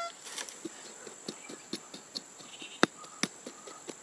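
Small metal hand hoe chopping and scraping into dry, loose soil: a run of short, irregular scrapes and knocks, with two sharper knocks about three seconds in.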